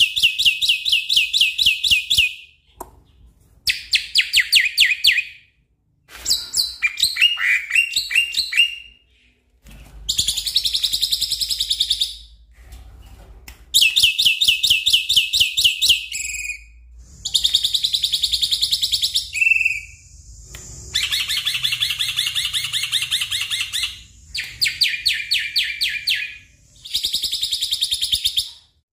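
Black-winged myna (jalak putih) singing in full, energetic song: about nine phrases of fast, rapidly repeated notes, each one to three seconds long, broken by short pauses.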